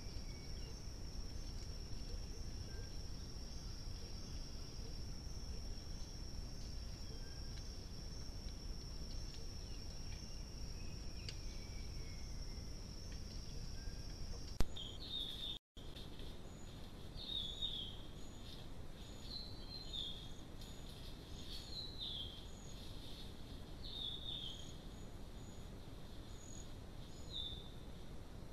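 Forest ambience picked up by a trail camera. For the first half a steady high insect drone runs over low background noise. A sharp click and a brief dropout come about halfway through. After that, a bird gives short falling chirps about every two seconds.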